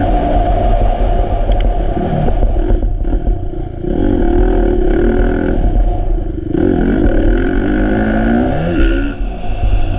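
Kawasaki KX450F's single-cylinder four-stroke engine under hard throttle on a motocross track, its pitch repeatedly climbing as it revs out and falling back between gears and corners. The throttle closes briefly about three seconds in and again about six and a half seconds in.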